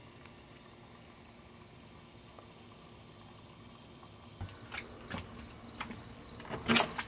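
Faint steady chirping of crickets. From about four seconds in, a handful of short knocks and rustles sound over it, the loudest near the end.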